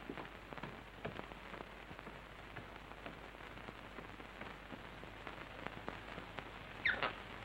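Hiss and crackle of a worn old optical film soundtrack, with scattered faint clicks. A sharper double click comes near the end.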